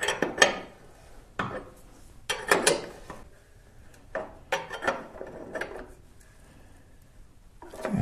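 A metal wrench clinking and scraping against a motorcycle's rear axle nut and chain adjuster hardware as it is fitted and worked, in several short bursts of metallic clatter with pauses between.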